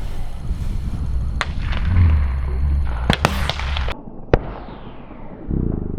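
Shotgun shots at passing doves: a couple of reports just over three seconds in, then a sharp, loud shot at about four seconds whose report fades away over the next second. A low rumble runs underneath until the last shot.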